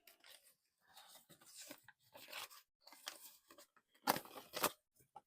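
Paper money and envelopes being handled: soft, scattered rustling and crinkling, with a louder, sharper pair of crinkles about four seconds in.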